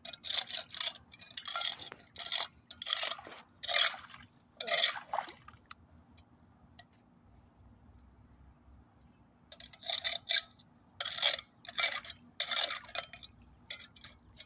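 Rake prongs scraping and grinding against a metal mesh storm-drain grate in a series of short strokes, working debris out of the clogged drain. The scraping stops for a few seconds midway, then starts again.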